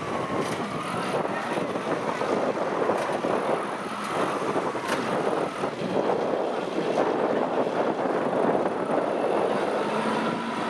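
Kubota DC-70 combine harvester running steadily while cutting rice: a dense, even machine noise with a faint high whine and a few light clicks.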